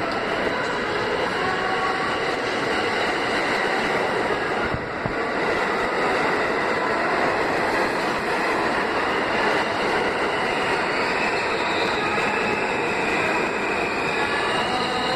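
New York City subway train running into the station past the platform: a steady heavy rumble of steel wheels on the rails, with thin high squealing tones coming in over the last few seconds.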